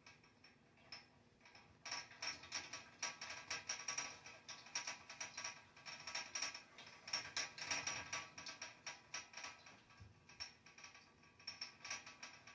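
A heater making an irregular run of sharp metallic ticks and knocks, several a second with a ringing ping to each, starting about two seconds in; the owner does not know what fault is causing it.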